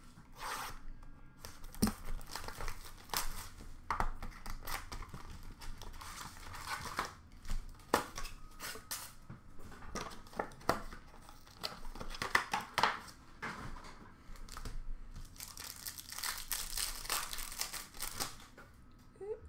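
Upper Deck hockey card packs being torn open, their wrappers crinkling, with irregular sharp rustles and crackles as packs, cards and boxes are handled.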